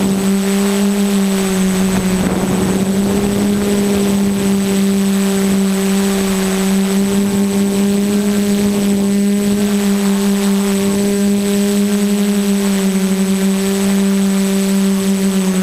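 QAV 500 quadcopter's electric motors and propellers running in flight: a steady buzzing hum whose pitch wavers slightly as the throttle shifts, heard close up from the camera on the drone. A thin, steady high whine sits above it.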